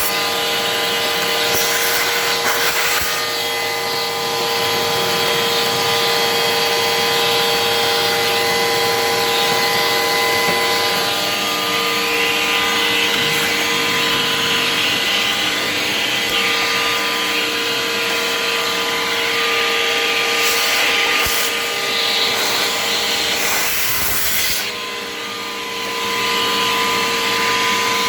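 Vacuum cleaner running steadily, a motor whine over a rush of air as it sucks dust and debris from the fridge's bottom compartment. The loudness dips briefly a few seconds before the end, then returns.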